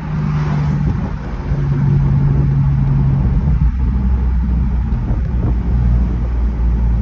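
2014 BMW M4 Convertible's twin-turbo inline-six running on the road, heard from the driver's seat with the top down. It steps up in loudness about a second and a half in, over steady road and wind noise.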